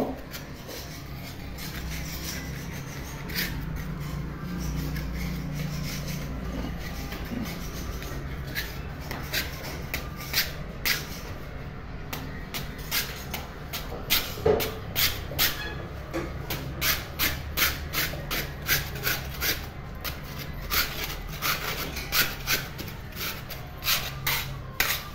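Scraper scraping paint that paint remover has softened off a wall, in repeated short strokes that come faster, about two a second, through the second half, over a low steady hum.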